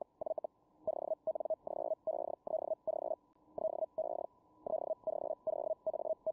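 Feld Hell (Hellschreiber) radio signal: a mid-pitched buzzing tone keyed on and off in short bursts, about two to three a second, each burst one character being sent, with brief gaps between words.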